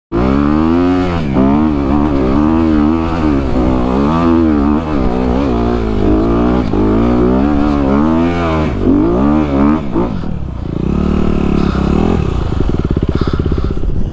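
Honda CRF250 dirt bike's single-cylinder four-stroke engine revving up and down under throttle on a climb, its pitch rising and falling about once a second. About ten seconds in it settles to a steadier note.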